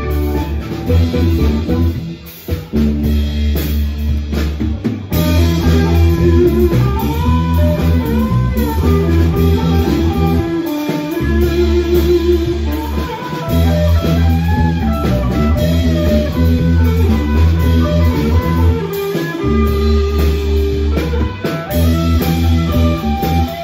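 A live band playing without vocals: electric guitars play melodic lines with bent notes over a bass guitar and drums.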